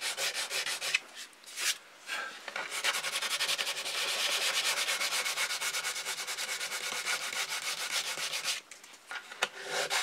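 Hand sanding with coarse sandpaper on the painted fuselage of a model airplane: quick, even back-and-forth scratching strokes, with short pauses about a second in and near the end. The smooth finish is being scuffed up so the glued-on canopy base will bond properly.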